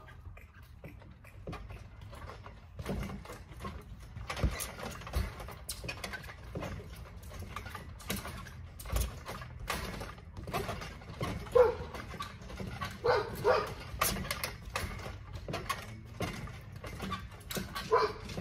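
Repeated thumps of feet bouncing on a backyard trampoline, with a dog barking a few times in the second half.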